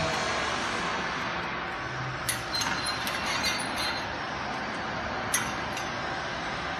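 A few light metallic clinks and taps from a tyre-cutting machine worked by hand, a cluster between about two and three and a half seconds in and one more a little after five seconds, over steady background noise.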